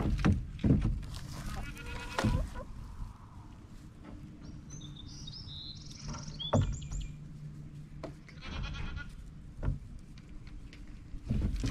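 Goats bleating twice, a wavering call about a second in and another near the end, among a few sharp knocks and clunks.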